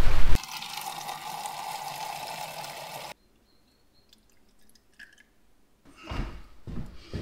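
A thin stream of water, squeezed from a soft bottle through a squeeze-type water filter, trickles steadily into a metal mug for about three seconds and then stops abruptly. After a quiet spell there are a couple of soft knocks near the end. Right at the start there is a brief moment of loud outdoor wind and stream noise.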